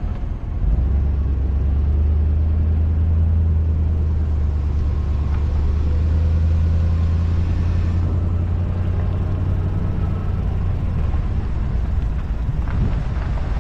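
A car driving slowly along a dirt track: a steady low rumble of engine and tyres that comes in about a second in and holds.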